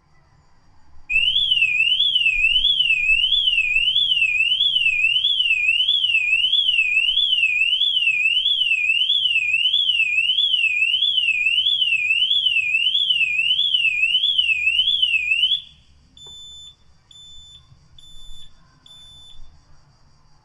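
Car alarm siren wailing, its pitch sweeping quickly up and down about one and a half times a second. It stops about fifteen seconds in, and four short, evenly spaced beeps at one pitch follow.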